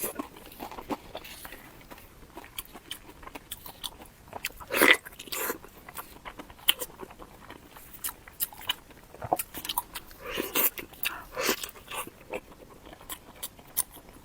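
Close-miked eating: crunchy bites and chewing, with many small crackling clicks and a few louder crunches, the loudest about five seconds in.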